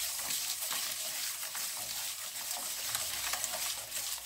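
A bare hand mixing raw eggs with sugar in a wide bowl: steady wet swishing and squishing, full of small crackly clicks.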